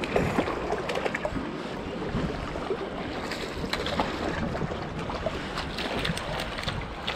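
Harbour water lapping against a timber wharf, with wind buffeting the microphone and scattered light clicks and taps throughout.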